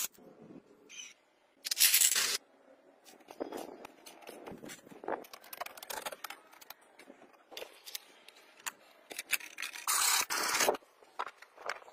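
Hands working small plastic parts: scattered clicks, taps and scrapes, with two loud noisy bursts. The second, near the end, is a hacksaw cutting a plastic pipe.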